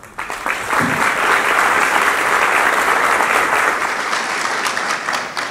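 An audience applauding. The clapping starts abruptly, is at full strength within about a second, and thins out near the end.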